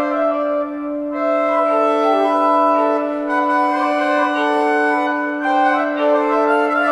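Instrumental background music: a melody of slow held notes moving over one steady, unbroken low drone note.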